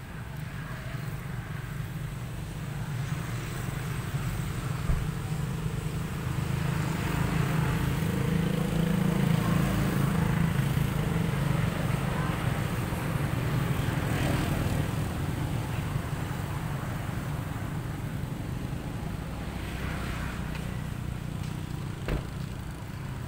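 A motor vehicle's engine rumble, low and steady, that swells to its loudest about nine seconds in and then slowly fades.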